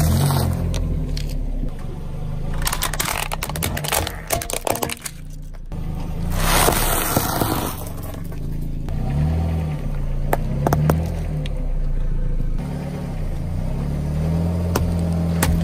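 A car's engine running and revving slowly while its tyre rolls over and crushes crisp food on tarmac. Dense crunching and crackling comes twice, from about 2.5 to 5 seconds and again around 6 to 8 seconds, with a few single cracks later.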